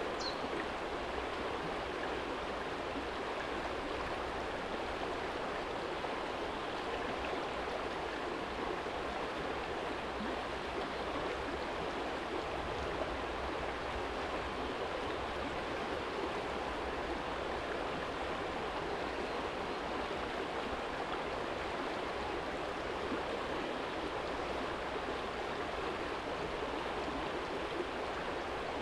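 Small shallow stream flowing over a stony bed: a steady, even rush of water.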